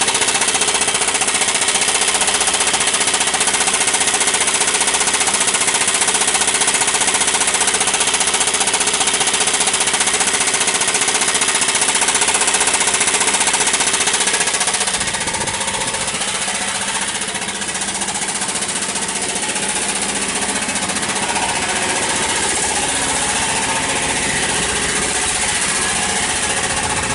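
Truck engine running with a loud, harsh, rapid metallic rattle from the starter and flywheel area, easing slightly about halfway. The mechanic suspects it comes from the flywheel rather than the newly fitted starter.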